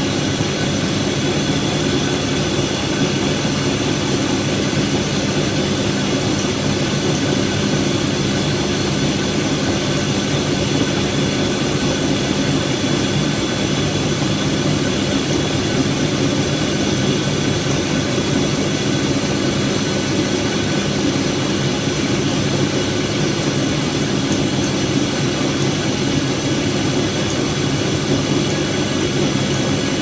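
Siemens Siwamat iQ front-loading washing machine running with its drum spinning: a steady motor hum with a faint high whine over the swish of foamy water, unchanging throughout.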